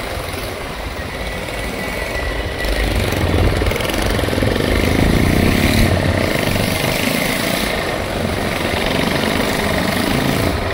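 Motorcycle running on the road during a ride, a continuous rumbling engine and road noise with no break.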